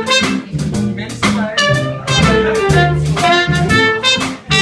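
Live big band jazz: a trumpet played with a mute carries the melody in short moving phrases over the band's bass and rhythm section.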